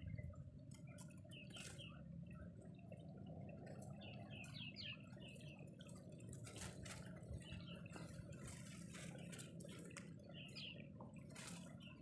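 Faint, steady low wind noise, with scattered small clicks and short high chirps over it.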